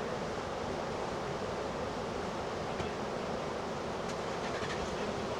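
Steady roar of breaking surf from a hurricane swell, mixed with wind.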